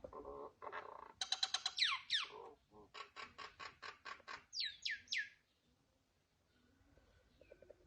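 A bird singing. It gives a fast run of repeated notes with falling slurred whistles, then a steady series of about six notes a second, then three quick downward whistles, stopping a little after five seconds in.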